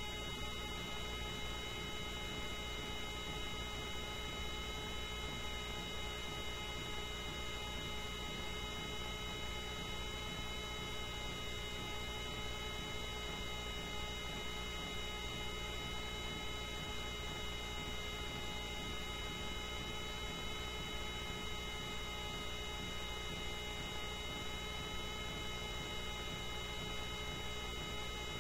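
Coast Guard rescue helicopter running at a hover, its engine and rotor noise a steady, unchanging drone with a low rumble and several fixed high whining tones, heard from a camera mounted on the aircraft.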